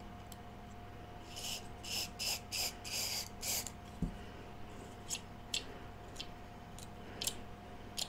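About six quick squirts of heavy-duty silicone spray lubricant from an aerosol can through a straw, into the bearing of a small power-supply cooling fan whose bearing is dirty and dry. A soft thump follows as the can is set down, then a few light clicks as the fan is handled.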